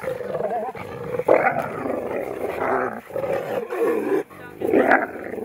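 Gray wolves growling and snarling in a dominance scuffle, in four or five rough bursts with short breaks between them.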